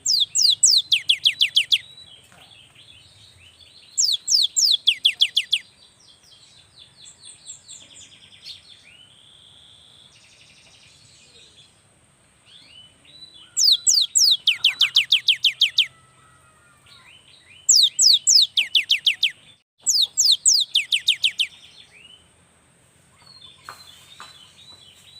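Cinereous tit (gelatik batu) singing: five bursts of rapid, high notes, each note falling steeply in pitch, about two seconds per burst. Softer chattering calls come between the bursts.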